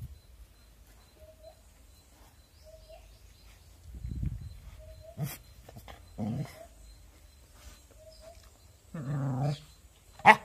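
A dog growls in short gruff bursts at its own reflection in a mirror, the longest about half a second, some nine seconds in. A sharp knock near the end.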